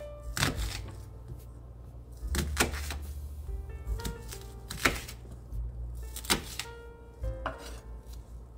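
A dull kitchen knife slicing through an onion and knocking on a wooden cutting board: several separate strokes a second or two apart, over background music.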